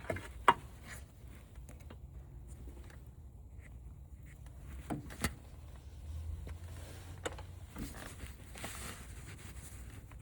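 A few sharp clicks and knocks from handling tools and parts, the loudest about half a second in, over a low steady hum.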